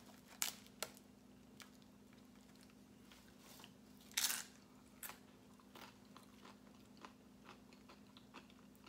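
Close-miked eating: soft chewing and mouth clicks, with a louder wet smack about four seconds in as she puts her fingers in her mouth. A faint steady hum runs underneath.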